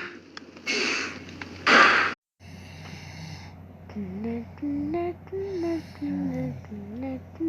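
Two short, loud rushing noises, then an abrupt cut. After the cut, a person hums a simple tune of held notes that rise and fall, over a low steady hum.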